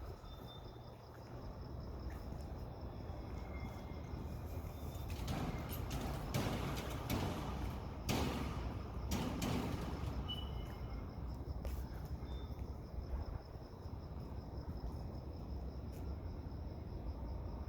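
Crickets chirping steadily over low wind rumble, with a loud swell of wind noise in the middle and a couple of faint sharp knocks later on.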